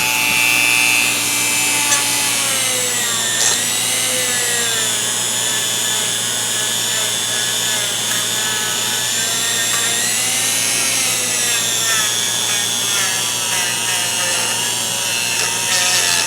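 Dremel rotary tool running with a wire wheel, cleaning dried grease off ratchet parts: a continuous high whine whose pitch dips and recovers as the wheel is pressed against the metal.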